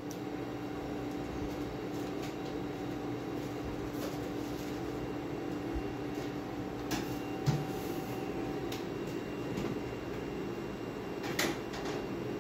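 Steady machine hum of a quiet room with one faint steady tone in it, and a few soft clicks and knocks: one about seven and a half seconds in, a sharper one near the end.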